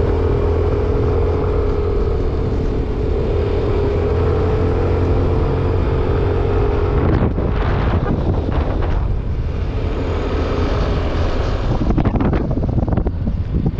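Yamaha NMAX scooter's single-cylinder engine running steadily under way, with a steady whine. From about halfway through, gusts of wind buffeting the microphone grow heavier and cover most of the engine sound.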